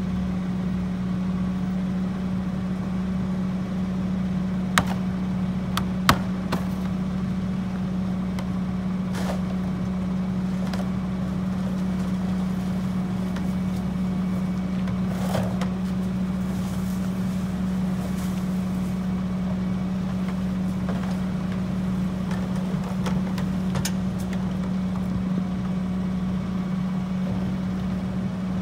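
Mack LE garbage truck's diesel engine idling with a steady drone. A few sharp knocks and clatters sound over it as carts of yard waste are tipped into the E-Z Pack rear-loader hopper.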